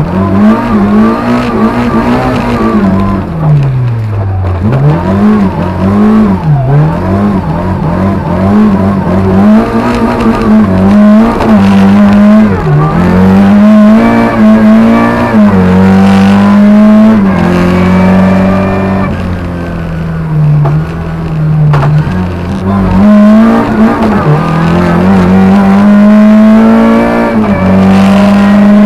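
Lada 2107 rally car's Béreš-built 1.6-litre four-cylinder engine driven hard, heard from inside the cabin. The revs climb and fall over and over through gear changes, dropping sharply several times.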